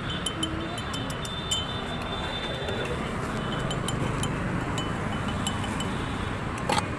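Steel spoon clinking against small glass tumblers as powder is spooned into them: a run of light clinks, with a sharper one near the end, over steady background noise.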